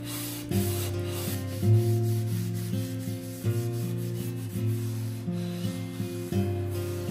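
Rubbing on wooden cutlery as it is cared for, a rough rubbing noise that runs throughout, over background music of sustained, changing chords.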